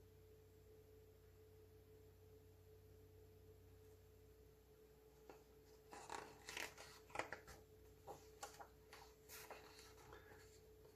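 Quiet for about five seconds, then the page of a picture book is turned by hand: a string of soft paper rustles and flicks over several seconds, with a faint steady hum beneath.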